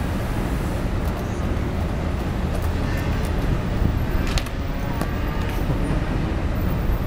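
Steady rumble of street traffic, with a few sharp clacks of skateboards hitting the pavement, the clearest a little past halfway.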